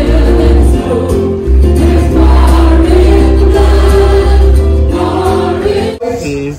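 Live gospel worship band playing an old chorus through a PA: several singers on microphones with acoustic guitar, electric guitar, keyboard and a deep bass. The music cuts off abruptly near the end.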